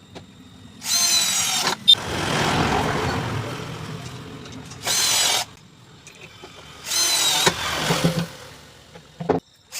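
Handheld power tool working wood in three short high-pitched bursts, with a rougher, fading stretch of noise between the first two.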